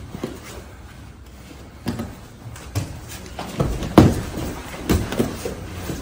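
Brazilian jiu-jitsu grappling on a foam mat: bodies, hands and feet thudding and scuffing on the mat, with gi cloth rustling. A run of dull thumps starts about two seconds in, the loudest about four seconds in.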